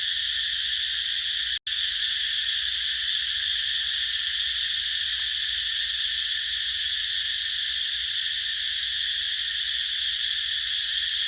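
Cicada chorus: a steady, high, unbroken shrill drone of many cicadas calling at once. It cuts out for an instant about one and a half seconds in.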